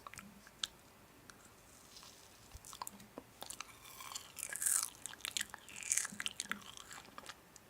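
Crisp food being bitten and chewed close up. A few scattered clicks come first, then a denser run of crunches from about three seconds in.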